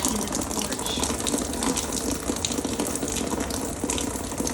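Rainwater pouring off balconies above and splashing onto the ground below in a steady gushing stream, with scattered spattering drops. The runoff comes down here because the balconies don't drain properly.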